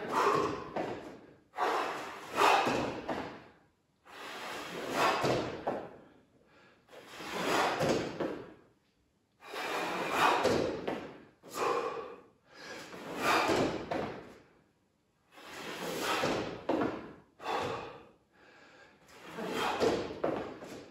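A person breathing hard with exertion during a strength set, one noisy breath about every two seconds with short silences between.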